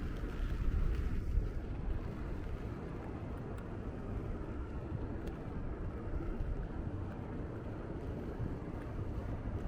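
Steady low rumble of city street ambience: distant traffic with wind buffeting the microphone.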